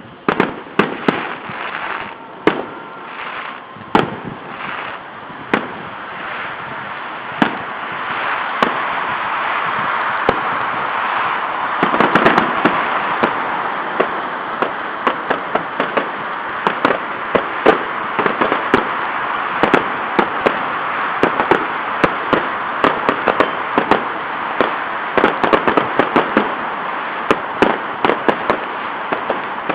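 Fireworks going off: separate sharp bangs at first, then from about ten seconds in a dense, steady din with frequent sharp pops on top.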